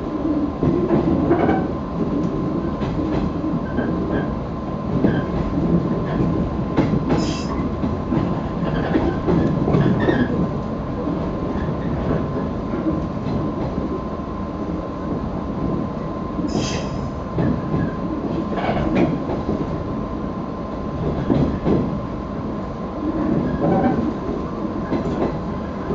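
Train running slowly over jointed track and through points, heard from inside at the front of the train: a steady rumble with irregular knocks and clacks as the wheels cross rail joints and switches, and a thin steady hum underneath.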